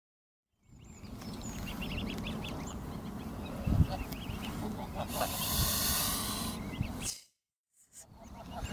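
Greylag goose hissing for about a second and a half, the warning sound of a parent guarding its goslings, with the goslings' short high peeps over a low rumble. The sound starts about a second in and cuts out briefly near the end.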